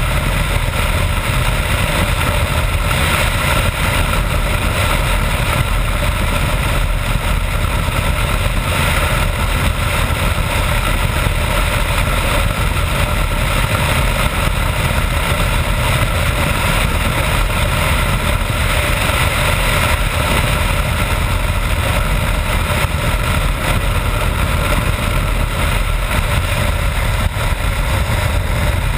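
BMW F650GS Dakar's single-cylinder engine running steadily at road speed, under a constant rush of wind on the camera microphone.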